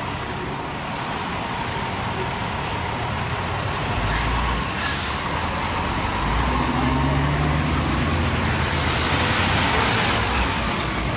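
Fire engine pumper pulling out, its diesel engine running and growing louder from about six seconds in as it passes close by. Two short air-brake hisses come about four and five seconds in.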